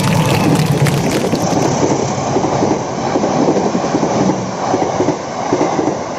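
Train running along the rails: a steady rumble of wheels and cars with a rattling clatter.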